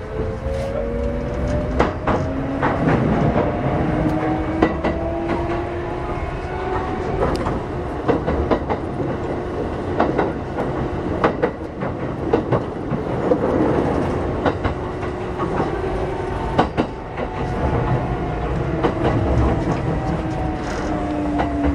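Kintetsu 8600 series electric train running: the motor and gear whine rises in pitch as the train accelerates, holds, then falls as it slows in the last few seconds. Wheels clack over rail joints under a steady running rumble.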